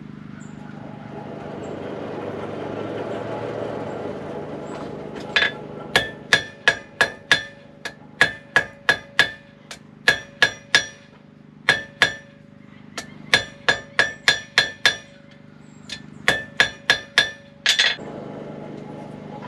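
Hand hammer striking a glowing steel bar on a Hay Budden anvil, drawing it out square. About two dozen blows, two or three a second in short runs, begin about five seconds in, each leaving a bright metallic ring. Before the hammering there is a steady hum from the coal forge's air blower.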